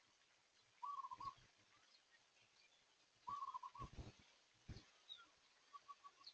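Faint bird calls: two short, stuttering calls about a second and three seconds in, then a quick run of short notes near the end. Two low thumps fall between them.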